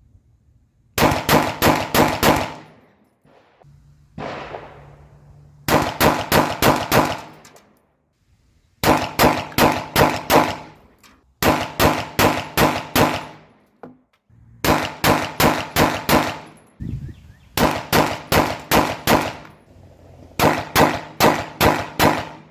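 Glock 19 9mm pistol with a ported barrel firing rapid strings of about five shots each, seven strings in all with short pauses between them.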